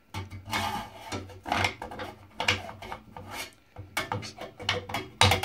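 Screwdriver blade scraping and clicking against a 3D-printed plastic insert inside a thin sheet-metal downpipe: irregular scrapes and small knocks, with a quick run of sharper clicks near the end.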